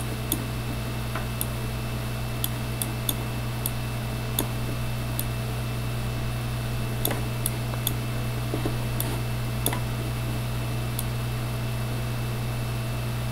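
Irregular computer mouse clicks, sharp and short, over a steady low electrical hum with a faint high whine.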